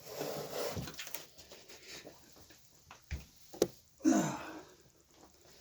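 Axle being slid through the hub of a Packout replacement wheel: a scrape of parts rubbing together, then two sharp knocks a little after three seconds and a short rubbing scrape just after four.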